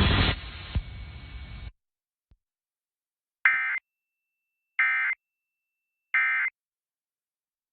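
Emergency Alert System end-of-message data burst: three short, identical buzzy warbling squawks about a second and a half apart, marking the end of the test alert. Before them, the station's broadcast audio fades out about a second and a half in, leaving silence.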